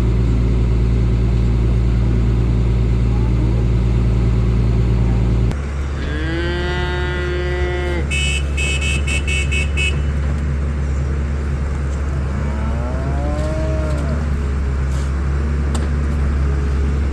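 Cattle mooing: one long call about six seconds in and another around twelve to fourteen seconds, over a vehicle engine running steadily whose pitch steps down about five and a half seconds in. A quick run of high, tone-like clicks comes between the two calls.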